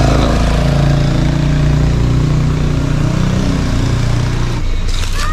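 Car engine running at low revs, a steady hum whose pitch wavers slightly; the hum drops away about four and a half seconds in.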